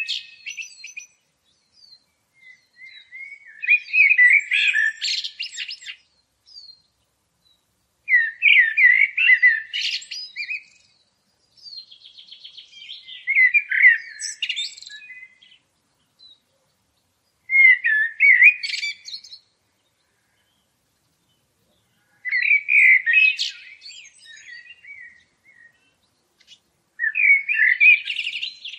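A songbird singing: short warbled phrases, each a few seconds long, repeated about every four to five seconds with silence between them.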